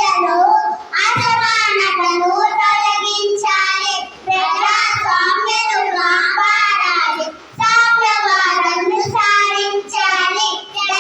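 A child singing a song in phrases, with short breaks for breath between them.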